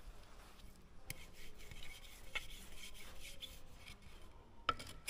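Handling noise from a black rubber concrete-pump piston cup being picked up and brought onto a soaped steel piston: faint rubbing and scraping with a few light knocks, and one sharper knock near the end.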